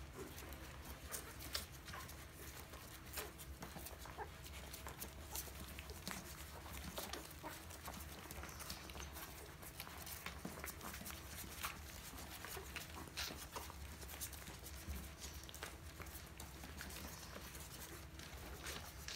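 Two-week-old mastiff puppies suckling, a continuous irregular patter of small wet clicks and smacks from many mouths at once.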